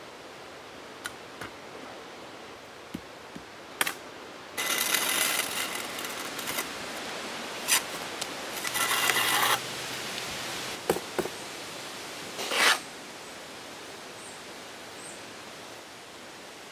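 Steel mason's trowel scraping excess mortar along the joints of concrete blocks: two stretches of rasping strokes, the first about four seconds in and the second near halfway, with scattered clicks and taps of steel on block around them and one louder scrape a little later.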